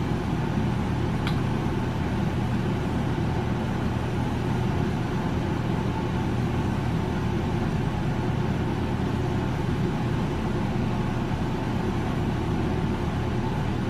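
Steady low hum with hiss, the room's background noise, unchanging throughout, with a faint click a little over a second in.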